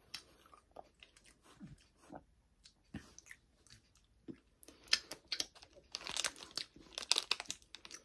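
Close-up mouth sounds of someone chewing a soft snack cake, small clicks and smacks. From about five seconds in a plastic candy wrapper crinkles loudly as it is pulled open.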